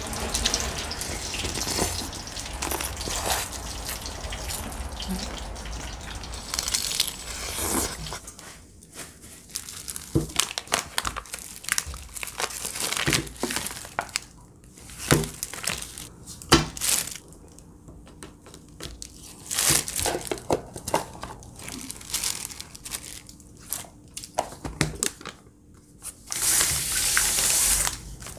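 Paper butter wrapper crinkling as a block of butter is unwrapped and portioned, with scattered clicks and knocks on a stone countertop. A steady hiss fills the first several seconds, and a short loud hiss like a running tap comes near the end.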